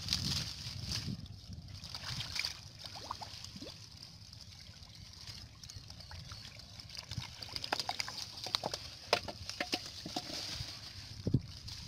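Hands squelching and sloshing through thick wet mud and shallow water while groping among water hyacinth roots for fish: irregular wet splats and smacks, busier in the second half, with one heavier thump near the end.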